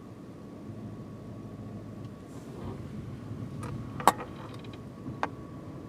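Road noise inside a moving car: a steady low rumble with a faint steady high tone. A few sharp clicks or knocks sound over it, the loudest about four seconds in.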